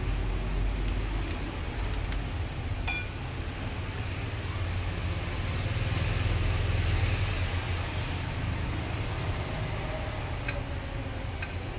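Steady low background rumble, typical of road traffic, swelling to its loudest about six seconds in and easing after, with a few faint light clicks.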